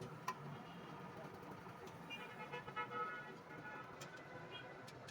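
Faint street background: a steady traffic hum with distant voices and scattered light clicks.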